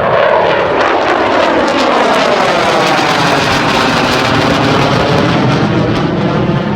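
USAF B-2 Spirit stealth bomber's four turbofan engines in a loud jet flyby: a steady rush of noise with wavering bands that slide down in pitch in the first second or two as it passes.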